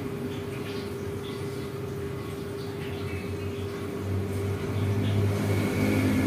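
Steady mechanical hum with one constant tone and a low rumble that grows louder about two-thirds of the way through.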